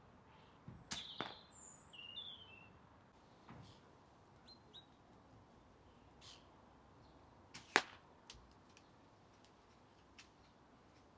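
Audio test of a silenced spring-powered SSG10 airsoft sniper rifle with a Stalker Scorpion piston: the firing is barely heard, and short sharp clicks mark the BBs striking the target. There is a cluster of clicks about a second in and the loudest single click near eight seconds, with birds chirping faintly in the background.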